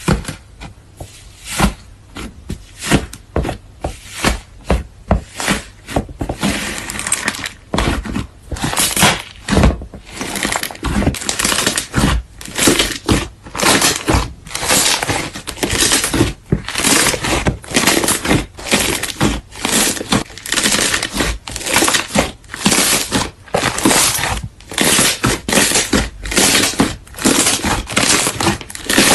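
Slime squeezed and pressed by hand, giving repeated crackling, crunching squishes, sparse at first and coming thicker and quicker after about six seconds.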